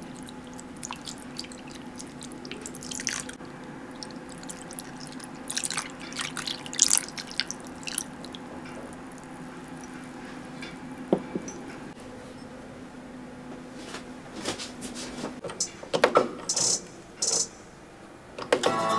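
Milk pouring from a small jug into a glass bowl over pieces of chocolate, splashing and dripping, over a faint steady hum. A few clicks and knocks near the end.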